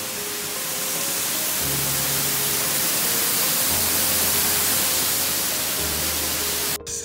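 Steady rushing noise of a waterfall, with soft background music of held notes and a slowly changing bass line underneath. The water noise cuts off suddenly near the end.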